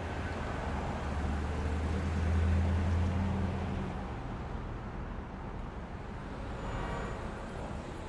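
City road traffic: steady road noise with a vehicle's low engine rumble that swells about two to three seconds in and then fades.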